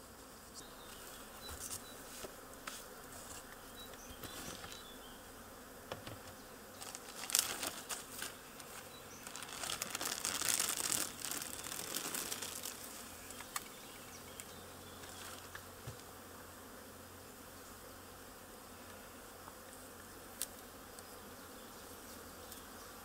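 Honeybees buzzing steadily around an opened hive. About ten seconds in comes a louder stretch of rustling and hissing as the plastic foil over the frames is peeled back and the smoker puffs smoke in, with scattered light clicks of the wooden frames.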